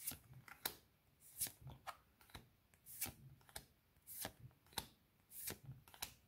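Pokémon trading cards being flipped through by hand, each card slid off the stack with a faint, short papery swish, about ten times at an even pace of a little under two a second.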